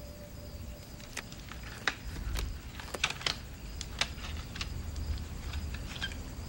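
About ten sharp clicks and taps, irregularly spaced, over a low rumble that comes up about two seconds in.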